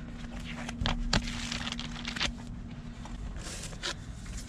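Rustling and scraping of an owner's manual and its papers being handled, with a sharp click about a second in.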